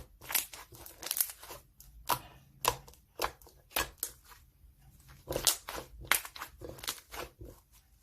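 Irregular crinkling and crunching: about a dozen short, crackly strokes in clusters, with small gaps between them.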